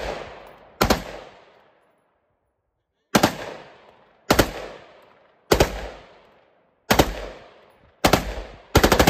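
Select-fire M16-pattern rifle firing short full-auto bursts of a few rounds each: seven bursts, most about a second apart, with a longer pause after the first. Each burst trails off in echo.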